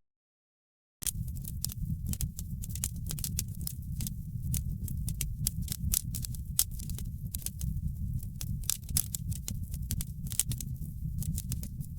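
Wood fire crackling, with many quick sharp pops and snaps over a steady low rumble of the flames. The sound drops out to dead silence for about the first second, then resumes.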